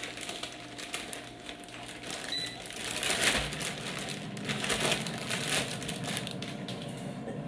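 Packaging crinkling and crumpling as it is handled, with one short electronic beep from the air fryer's control panel about two and a half seconds in.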